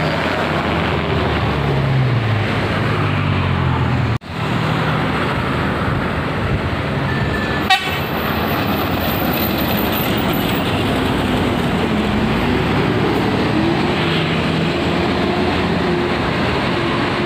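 Heavy diesel traffic climbing a steep grade: buses and fully loaded UD Quester trucks run under load as the buses overtake, a steady engine drone whose pitch falls about two seconds in and rises again in the last third. The sound cuts out abruptly just after four seconds, and there is a short click near eight seconds.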